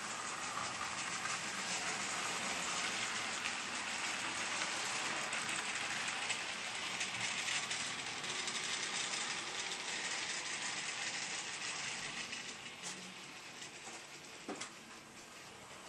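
OO gauge model container freight train running past on the track, a dense rattling clatter of small wheels over the rails. It fades as the train moves away, from about ten seconds in.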